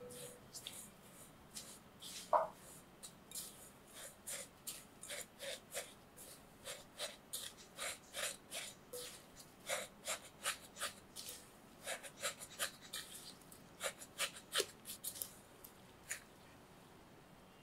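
Silicone spatula stirring and scraping crushed biscuit crumbs and melted margarine in a glass bowl, in quick repeated strokes of about two to three a second, with one sharper click against the glass about two seconds in. The stirring stops about sixteen seconds in.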